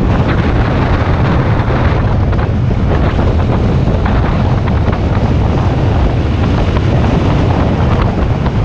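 Steady, loud wind buffeting on the microphone of a motorcycle-mounted camera at highway speed, a heavy low rumble with the motorcycle's engine and road noise beneath it.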